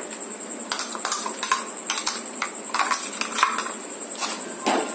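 Irregular metal clinks and scrapes of a steel grinder jar and utensil against a metal cooking pot as thick ground coconut paste is emptied out of the jar.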